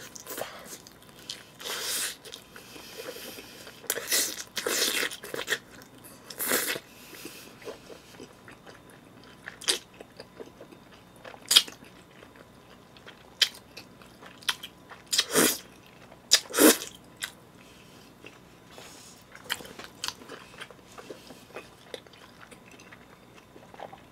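Close-miked biting and chewing of pizza crust, with a few noisy bites in the first seven seconds and sharp mouth clicks scattered through the rest.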